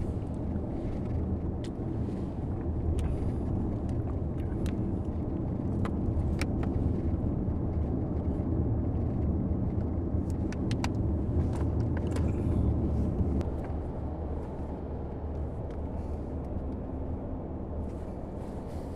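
Steady road and engine noise inside a moving car's cabin, with scattered faint clicks; it eases down a little about two-thirds of the way through.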